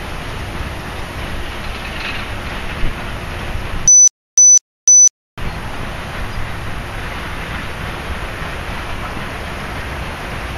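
Steady rushing background noise with a low rumble, cut off about four seconds in by a second and a half of dead silence that carries three short, high electronic beeps, evenly spaced. Then the rushing noise resumes.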